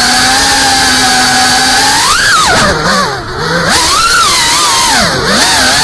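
FPV freestyle quadcopter's brushless motors whining, held steady for about two seconds, then rising and falling sharply in pitch as the throttle is worked through quick manoeuvres, with a brief drop about three seconds in.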